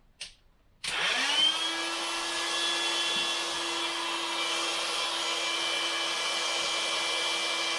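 Intex electric air pump switching on about a second in, its motor spinning up in a brief rising whine and then running steadily as it inflates the tubes of a PVC inflatable boat.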